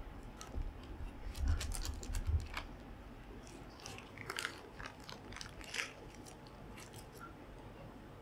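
Plastic bear-shaped sandwich cutter pressed down onto bread on a wooden board, giving a few dull thumps and clicks in the first couple of seconds. Then a clear plastic sheet is peeled off a cheese slice, crinkling and crackling about four to six seconds in.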